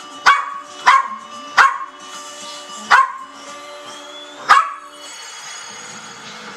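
A puppy barking five short, sharp barks, the last about four and a half seconds in, with television music playing underneath.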